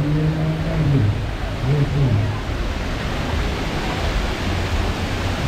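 Busy street ambience: a steady wash of crowd and traffic noise, with a man's voice calling out twice in the first two and a half seconds.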